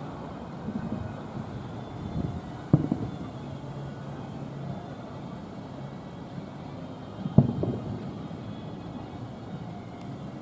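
Fireworks shells bursting in the distance: two sharp booms about four and a half seconds apart, each trailing off in a rumbling echo, with a few fainter pops between, over a steady low hum.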